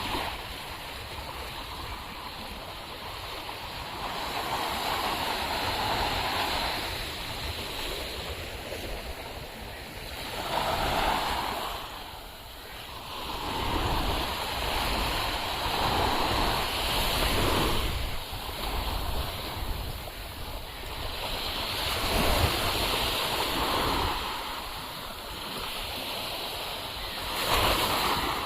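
Sea surf washing onto a beach, swelling and falling away every few seconds, with wind rumbling on the microphone.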